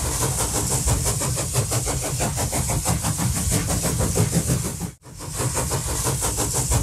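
Engine of a moving train running steadily, a continuous low rumble. It cuts out abruptly about five seconds in and resumes a moment later.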